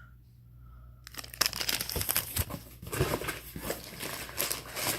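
Plastic candy wrappers crinkling and crackling as they are handled, starting about a second in.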